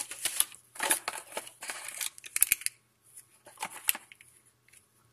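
Cardboard and paper packaging of a phone box being handled: rustling and scraping in several short bursts, with a few sharp clicks and taps.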